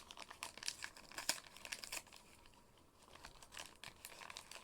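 Packaging crinkling and crackling as a blind box is handled and opened: a run of small crackles and clicks that thins out for a second or so past the middle, then picks up again.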